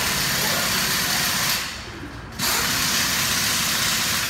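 A tool running in bursts: loud hissing with a low rattle underneath. It stops for under a second about a second and a half in, then runs again and cuts out near the end.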